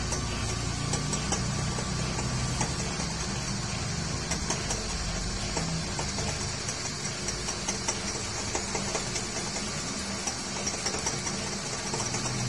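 Metal lathe running steadily while a cutting tool turns down the outside diameter of a truck pinion gear shaft: a steady hum with a high hiss and small ticks.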